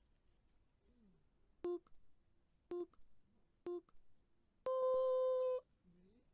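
Countdown start-signal sound effect: three short, lower beeps about a second apart, then one long, higher beep lasting about a second, marking the start.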